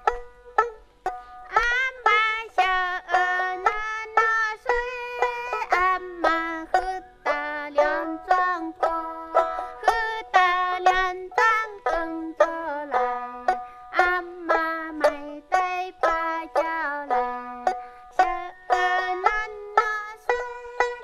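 Instrumental music: a plucked string instrument picking a running melody of short, quickly decaying notes, about two or three a second, over steady held drone tones.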